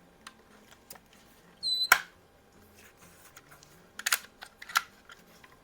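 Mechanical handling of a Crosman 66 pump air rifle: a brief high squeak and a sharp click about two seconds in, then a few lighter clicks a couple of seconds later, as the freshly oiled pump and action are worked.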